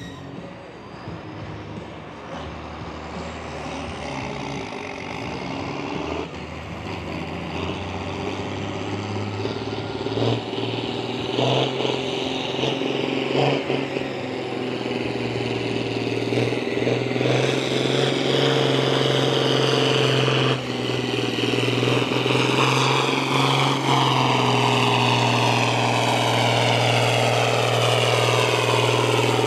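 Antique farm tractor's engine working hard under load while pulling a weight-transfer sled. It grows steadily louder over the first eighteen seconds or so, then holds at full volume.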